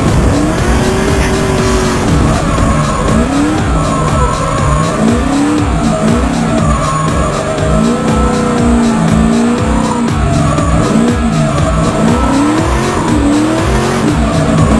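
LS V8-swapped Nissan 240SX drift car at full throttle through a drift, the engine revving up and falling back again and again, about every one to two seconds, with tyres squealing. Heard from inside the cabin for most of it.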